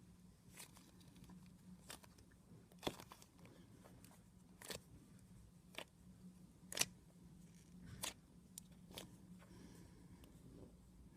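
Butter slime being squished and poked, giving soft pops and clicks about once a second over a faint low hum.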